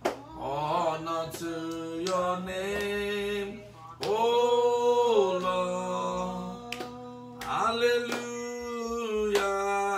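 A man singing a slow worship song, holding long notes and sliding between pitches.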